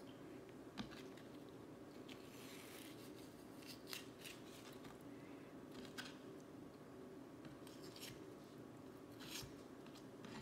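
Kitchen knife slicing aloe vera leaves on a cutting board: faint, scattered cuts, scrapes and light taps of the blade, a second or two apart.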